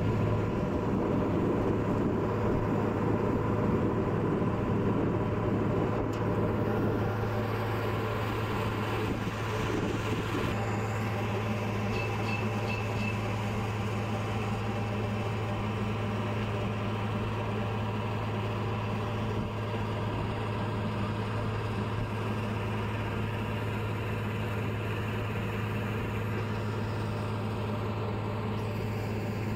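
Steady low drone of a river launch's diesel engine, heard from aboard the boat as it cruises.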